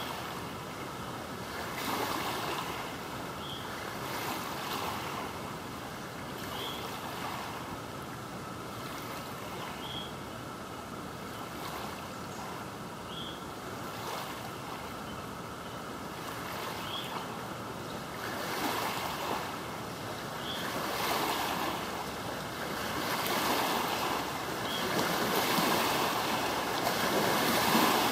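Water washing and lapping with wind on the microphone, swelling every couple of seconds and growing louder toward the end. A faint short high chirp recurs about every three and a half seconds.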